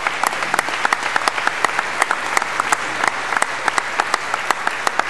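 An audience applauding: many hands clapping steadily, with single sharper claps standing out from the wash.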